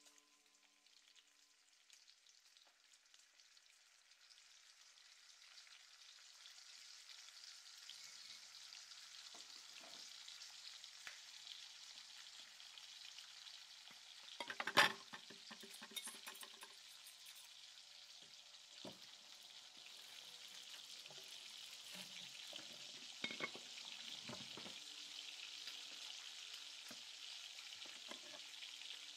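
Food sizzling as it fries in a pan, the sizzle swelling in over the first few seconds and then holding steady, with occasional knocks of a utensil stirring against the pan. About halfway through comes one loud metallic clank with a brief ringing, and a run of smaller knocks follows near the end.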